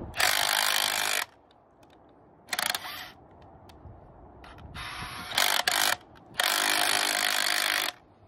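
Cordless rotary hammer drill set to spin only, turning a coupler nut threaded onto an old 3/8-inch wedge bolt to work it out of the rock. It runs in short bursts, the last about a second and a half long.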